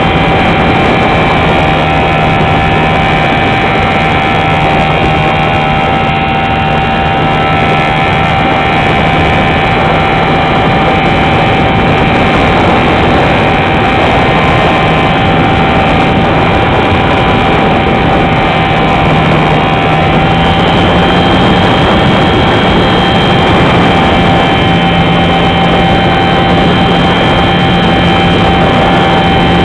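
An R/C Super Cub model plane's motor and propeller run steadily in flight, heard close up from a camera on board. The pitch steps up slightly and a higher whine joins about two-thirds of the way in.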